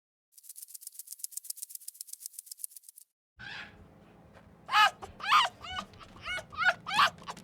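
A rattle shaken fast for about three seconds, then after a short break a run of short high-pitched animal calls, each rising and falling in pitch, coming about twice a second over a low hum.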